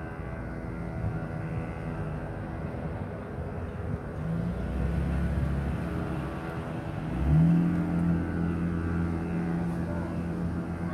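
Steady engine drone. A stronger, higher engine tone joins about four seconds in and jumps up in pitch and loudness a little after seven seconds, then holds steady.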